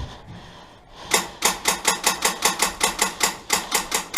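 Airsoft gun firing a fast, steady string of shots, about six or seven sharp cracks a second, starting about a second in.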